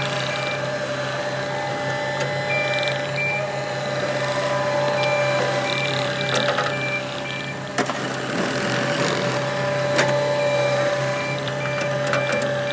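Cat 259D compact track loader's diesel engine running steadily with a constant whine, while its reverse alarm beeps in several spells as it backs up. Two sharp knocks come in the second half.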